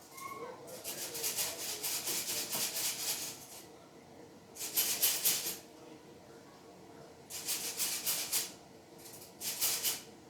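Rapid rattling in four bursts of about a second or more each, the first and longest lasting close to three seconds, like something being shaken.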